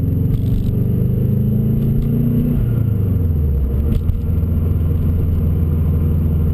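Turbocharged EJ25 flat-four engine of a 2002 Subaru WRX, built with forged internals, running under way. The revs hold for a couple of seconds, drop over about a second and a half, then settle into a steady lower drone.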